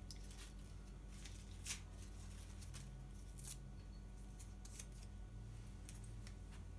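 Small paper cutouts handled at close range: faint rustling and scattered small clicks, with two sharper clicks about a second and a half and three and a half seconds in.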